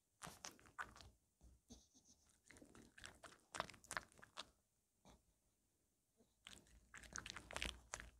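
Maltese dog chewing and crunching a fresh strawberry, in three bursts of quick crunchy bites with a short pause a little past halfway.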